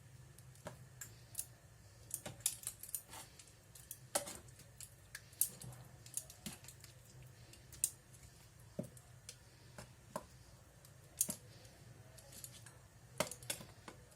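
Chicken wings being dredged in flour by hand: scattered, irregular light clicks and taps against the bowl, over a low steady hum.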